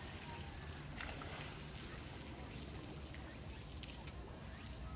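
Steady low background rumble with faint, distant voices and no clear splashing.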